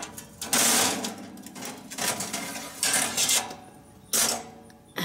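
Metal cooking grate of a charcoal grill being lifted off and handled, rattling and clanking against the grill body. There are loud scraping clatters about half a second in and again near the end, with sharper knocks in between.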